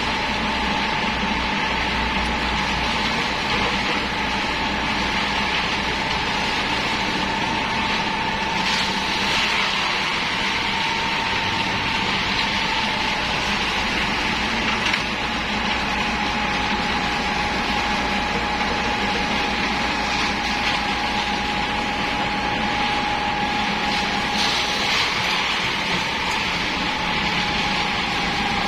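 Heavy diesel machinery, a Komatsu PC78US excavator working with a mini concrete mixer truck, running steadily, with a steady high whine over a constant mechanical rush.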